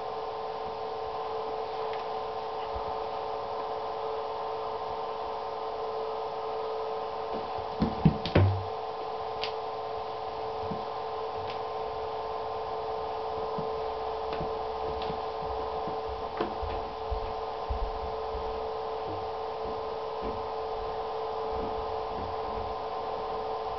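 A steady hum of several tones throughout, with scattered knocks and light taps as a kitten bats a toy ball around an empty acrylic whirlpool tub. The loudest knocks come in a short cluster about eight seconds in.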